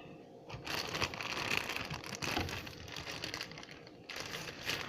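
Plastic marshmallow bag crinkling and rustling as it is handled, starting about half a second in and easing off near the end.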